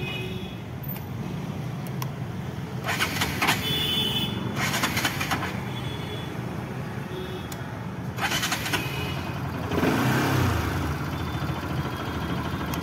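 Motorcycle and scooter engines running at low revs, with a scooter riding past and a few short bursts of noise. A low engine note swells about ten seconds in.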